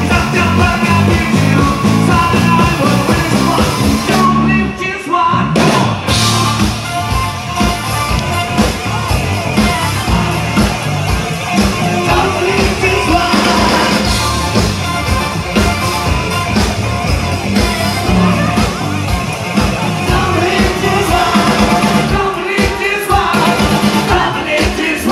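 A live rock band playing loud through the PA: electric guitar, drums and a male lead singer. The band drops out briefly about five seconds in, then comes back in.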